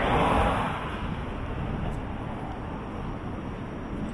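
A car passing close by on the road. Its tyre and engine noise peaks in the first half second, then fades into a steady background of traffic noise.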